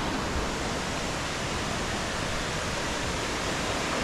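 River rapids rushing, a steady, even sound of fast water.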